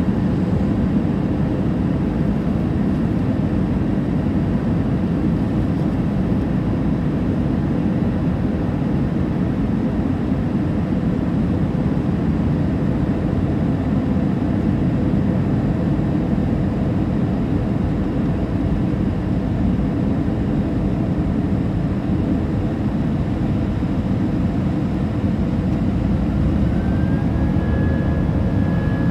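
Steady low rumble of an Airbus A320 airliner in flight, heard from inside the cabin: engine and airflow noise. A faint whining tone comes in near the end.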